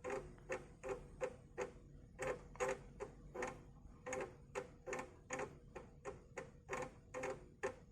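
Amiga 500's internal 3.5-inch floppy drive reading a disk while loading, its head stepping in a steady run of soft clicks, about three a second.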